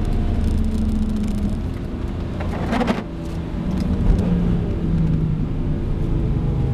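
BMW E46 M3's S54 straight-six heard from inside the cabin on track. The engine eases off, and after a sudden break about three seconds in it picks up and pulls again. Tyre and road noise from the wet surface runs underneath.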